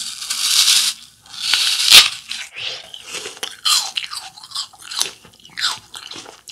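Biting into a whole raw apple: two loud, crisp crunches in the first two seconds, the second ending in a sharp crack, then steady crunchy chewing of the mouthful.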